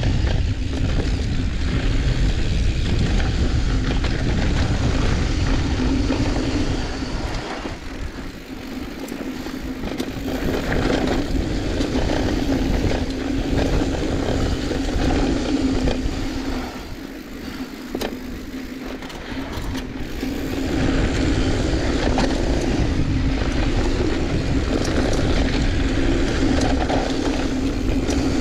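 Wind rushing over the camera microphone and the tyres of a mountain bike rolling over loose, dusty dirt singletrack on a fast descent, with a steady hum underneath. The rush drops off twice for a few seconds.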